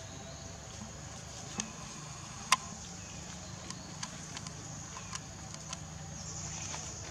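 Outdoor ambience: a steady low hum and a faint high buzz, with scattered sharp clicks and snaps, one much louder snap about two and a half seconds in.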